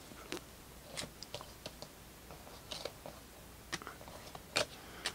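Trading cards being handled and sorted by hand: quiet, irregular taps, clicks and short slides of card stock against card.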